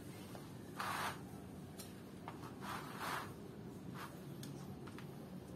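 Hands handling a small object, giving short rustling and rubbing sounds about a second in and again around three seconds in, with a few faint clicks.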